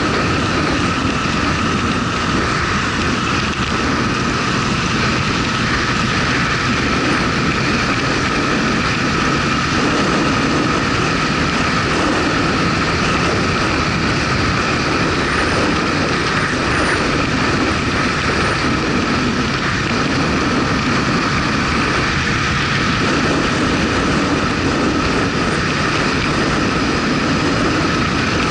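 Motorcycle under way at a steady speed: engine running with road and wind noise, holding level with no gear changes or revving.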